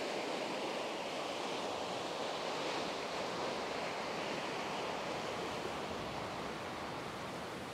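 Low waves breaking and washing onto a sandy beach: a steady rush of surf that eases a little near the end.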